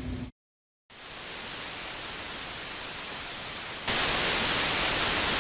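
Steady hiss of TV-style static (white noise), fading in just after a brief moment of dead silence and jumping up in loudness about four seconds in.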